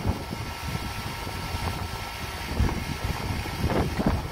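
Wind buffeting the microphone, an uneven low rumble, over a faint steady hiss, with a few dull knocks.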